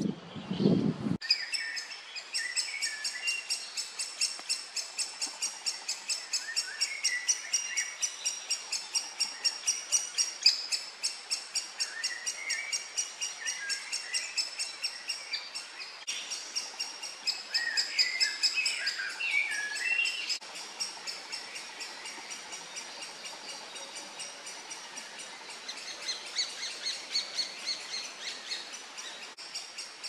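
Woodpecker nestlings begging from inside a tree nest hole: a fast, continuous series of high, sharp calls, about three a second, louder in the first two-thirds and fainter near the end. Other birds' warbled phrases come in now and then, and there is a brief low rumble in the first second.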